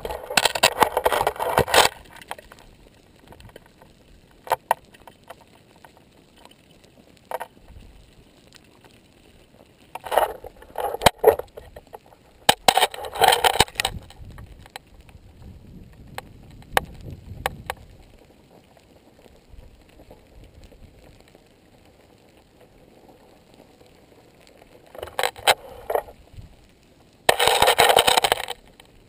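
Cooling pahoehoe lava crust crackling and scraping as molten toes push through it. Scattered sharp clicks, and five bursts of crackling a second or two long, the last near the end.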